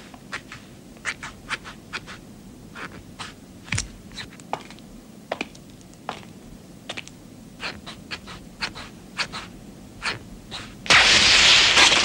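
Irregular clicking steps of a sentry's boots on cobblestones, a few a second. About eleven seconds in, a sudden loud hissing noise breaks in and keeps going.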